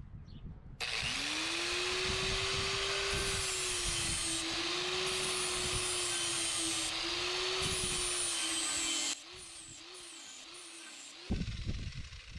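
Electric angle grinder spinning up and grinding the edge of a steel rototiller tine to sharpen it, running steadily with a hiss for about eight seconds before winding down. Irregular low rumbling noise follows near the end.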